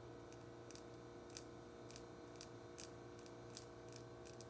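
Near silence: room tone with a faint steady hum and a dozen or so small, sharp clicks scattered irregularly throughout.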